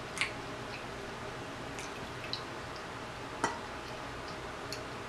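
Mouth sounds of eating rotisserie chicken: wet chewing with a handful of short lip smacks, the sharpest about three and a half seconds in.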